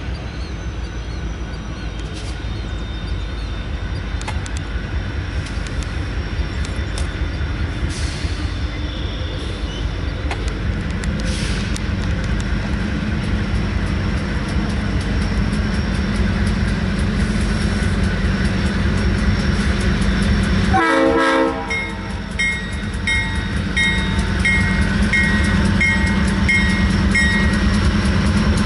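CN freight train led by a GE C40-8W locomotive approaching and passing, growing louder, with a heavier engine rumble coming in about ten seconds in. The locomotive's air horn sounds over the rumble and the wheels clatter on the rails. Near the end a short high tone repeats a little faster than once a second.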